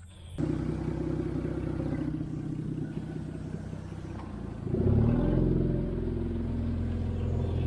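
Lexus LX450's straight-six engine idling. About five seconds in the revs rise and it runs on steadily at higher revs.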